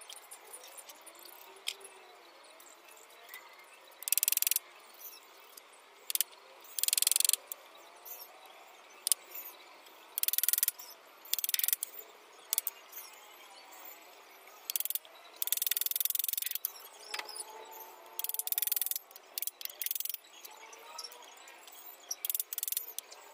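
Irregular short rasping bursts, each about half a second to a second long, with a few sharp knocks in between: hand carpentry on thin wooden laths.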